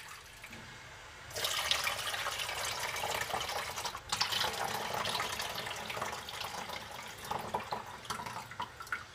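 Hot water pouring from glass jars of packed tomatoes into an enamel pot: draining off the water that stood in the jars for six minutes, a preheating step in canning. The pouring starts about a second in, breaks briefly near four seconds, then runs on until just before the end.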